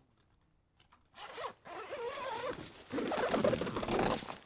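A zipper being pulled in a few strokes, a rasp whose pitch rises and falls with the pulling speed. The last, longest pull is the loudest.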